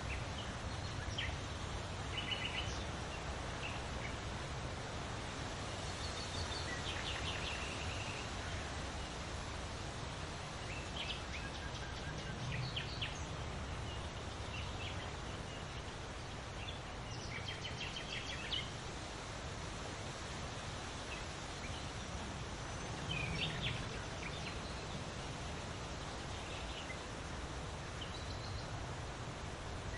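Wind rustling through large leaves as a steady hiss over a low wind rumble, with birds calling in short chirping trills every few seconds.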